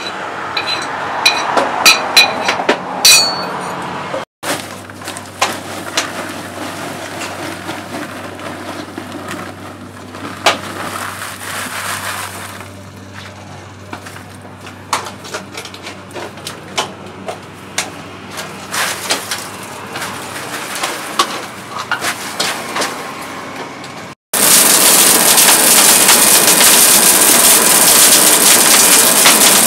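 A hammer striking metal on an anvil about six times, each strike ringing. Then comes a quieter stretch of scattered light clicks and clinks. Near the end a charcoal forge fire sets in, burning hard with a loud steady rushing hiss and crackle.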